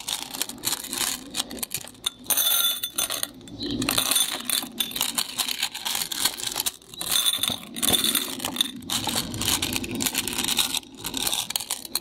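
Flat glass decorative beads clinking and rattling against each other as they are scooped up by hand and dropped into a bowl, a dense, irregular run of small clicks.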